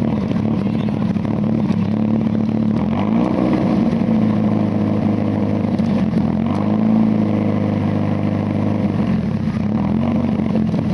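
Lancia Delta rally car's engine running at a fast idle, its revs rising and falling twice as the throttle is blipped.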